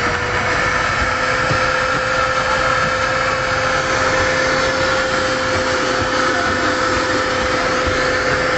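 Electric mixer-grinder (Maharani Jumbo) running at a constant speed with a steady whine, blending a milky coffee mix in its jar.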